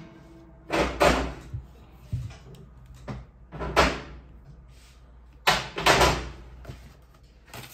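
A run of irregular knocks and bumps, about half a dozen, loudest about a second in and again near six seconds.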